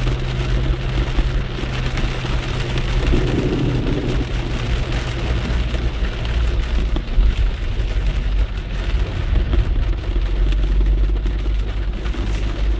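Car running on a rain-soaked road, heard from inside the cabin: steady low rumble of engine and tyres on wet tarmac, with rain on the windscreen. A low engine hum eases about halfway through.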